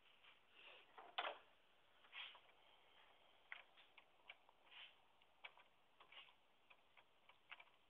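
Faint, irregular clicking of a hand tool working at a car battery's terminal, about one or two sharp clicks a second with a louder click about a second in.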